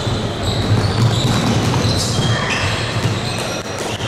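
Indoor basketball play: a basketball bouncing on the court and sneakers giving short high squeaks on the hardwood, over the steady noise of the hall. A few sharp knocks come near the end.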